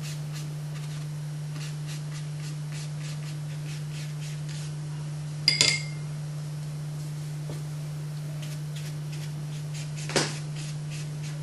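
A sharp clink with a short ring about halfway through and a lighter knock near the end: painting gear knocked against a hard pot or palette. A steady low hum runs underneath.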